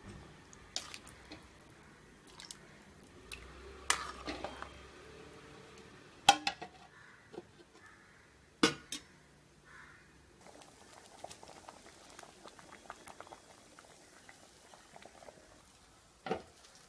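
A metal ladle and a metal lid knocking against an aluminium cooking pot: a few sharp clinks, the loudest about six and nine seconds in, with light scraping and small ticks between.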